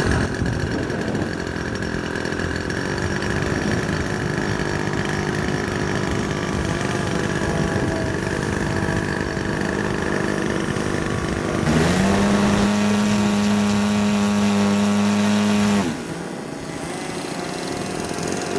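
Engine of a large-scale radio-controlled Douglas SBD Dauntless model running on the ground. It runs steadily at first, revs up about twelve seconds in, holds there for about four seconds, then drops back.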